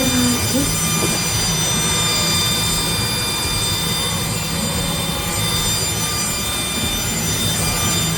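Twin Volvo Penta 380 engines running steadily: a constant low rumble with faint steady high-pitched tones above it.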